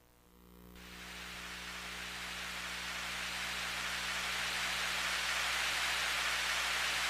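A noise-like sound effect from a Kumyoung Chorus HD3000 karaoke machine: an even hiss that fades in over the first few seconds and then holds steady.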